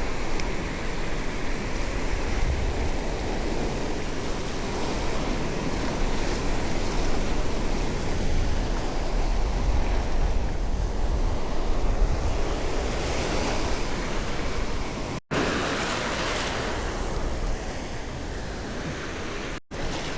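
Surf breaking and washing up the beach, with wind rumbling on the microphone. The sound cuts out for an instant twice near the end.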